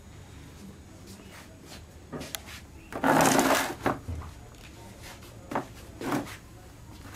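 Handling noises: a loud rustle about three seconds in, with a few shorter knocks and clatters around it, as the warp threads and their wooden bars are moved.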